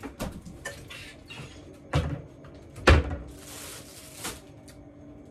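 Refrigerator door being shut with a thud about three seconds in, after a sharper knock about two seconds in, among lighter clicks and handling noises.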